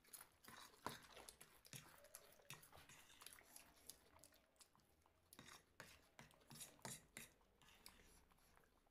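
Faint chewing with scattered small crunches and clicks, a person eating snacks.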